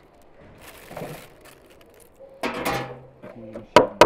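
Quiet handling, then a short louder noise about two and a half seconds in. Near the end a kitchen knife chops grilled tomato on a wooden cutting board: two sharp strikes.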